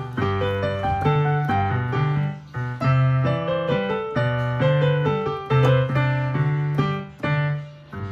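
Yamaha digital keyboard on its piano voice playing a minuet, melody in the right hand over a bass line in the left. The phrases break off briefly about two and a half seconds in and again near the end.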